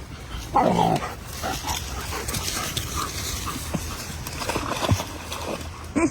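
A dog giving one loud, drawn-out whining yelp about half a second in, followed by scattered short animal sounds and two quick yelps right at the end.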